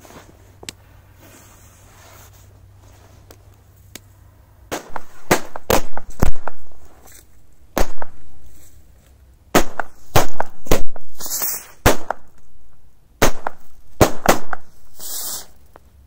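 Firecrackers going off on the ice in an irregular series of more than a dozen sharp, loud bangs, starting about five seconds in. Two short bursts of hissing fall between the bangs.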